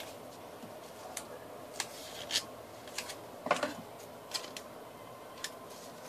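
Scattered small clicks and crinkles of paper and foil being bent and handled, with a louder rustle about three and a half seconds in.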